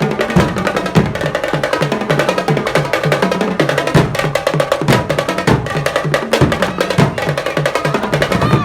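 Drums played loudly in a fast, steady rhythm, with dense rapid strokes over a repeating pattern of low drum notes.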